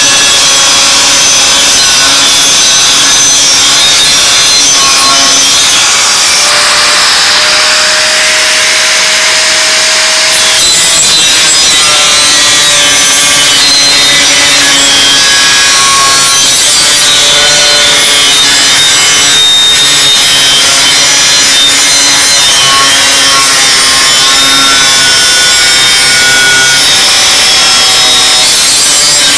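4.5-inch angle grinder with a cutoff wheel cutting through 1/8-inch steel plate: a loud, continuous grinding screech, with the motor's whine drifting in pitch as the wheel bites into the cut.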